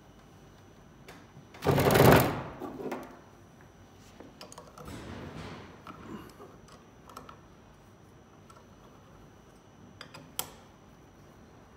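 A heavy rubber-toothed wheel with a metal hub set down on a workbench: a loud knock and clatter about two seconds in. Then softer scraping and small metallic clicks of a hand tool turning the hub bolts, with one sharp click near the end.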